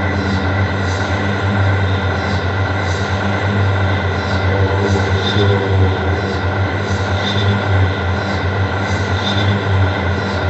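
Experimental noise music: a dense, steady drone of low hum, held tones and hiss, with a faint swishing sweep recurring about every 0.7 s and a brighter chirp every two seconds.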